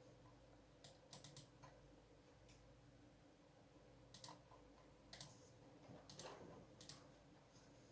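COX CK87 mechanical keyboard with Gateron Yellow linear switches: a few scattered keystrokes, a quick cluster of three or four about a second in, then single presses every second or so. The case is foam-dampened, so the presses sound clean without case ring.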